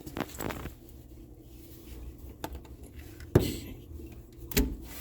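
A few sharp clicks and knocks of small hard objects being handled, the loudest about three and a half seconds in.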